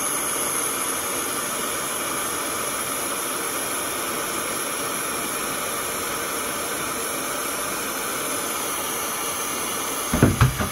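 Handheld gas torch burning with a steady hiss. A few short, louder sounds come near the end.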